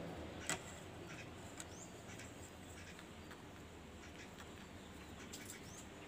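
Quiet background with a few scattered sharp clicks, one louder about half a second in, and faint high chirps of small birds.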